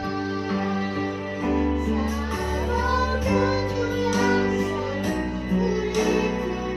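A song with a singing voice over an accompaniment of bass and plucked guitar, the notes held and changing every second or so.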